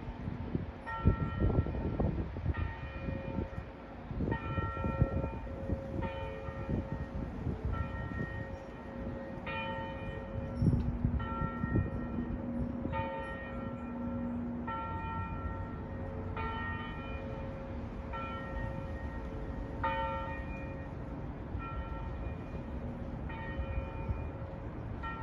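Noon church bells ringing, struck about once a second, each stroke a different pitch and ringing on into the next. For about the first half, loud low rumbling thumps sound under the bells.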